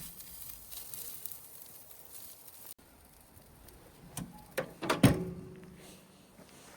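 A light crackling hiss that cuts off near three seconds, then a few sharp knocks about four to five seconds in, the last one the loudest with a brief ring after it.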